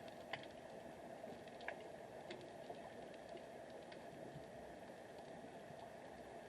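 Faint underwater ambience: a steady low hiss with scattered sharp clicks and ticks at irregular intervals.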